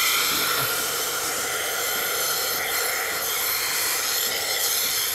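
Steady hiss of air being sucked into the open teat cup of a dairy milking cluster under vacuum.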